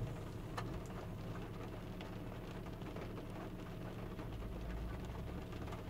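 Rain pattering on a car's roof and windows, heard from inside the cabin over a steady low hum.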